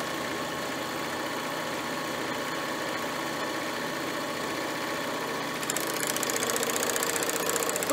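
Babylock Vibrant serger running steadily, stitching and trimming a fabric edge with its cutting knife moved far over so it cuts off little fabric. About two thirds of the way through it gets a little louder and brighter.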